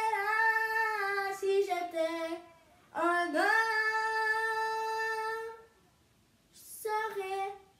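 A child singing solo and unaccompanied in long held notes: a short phrase, then one long sustained note in the middle, then a brief phrase near the end, with short pauses between.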